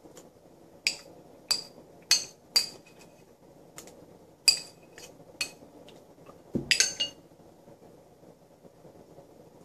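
A spoon clinking and scraping against a white bowl during eating: about a dozen short, ringing clinks at irregular intervals. Near seven seconds there is a quick cluster of clinks with a dull knock, as the bowl is set down on the table.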